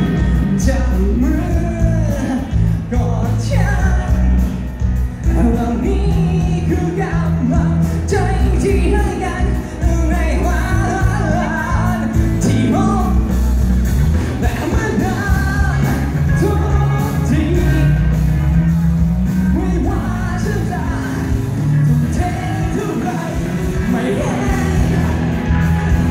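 Live band music with a singer, amplified through the PA of a large hall and heard from within the audience, with the hall's echo on the sound.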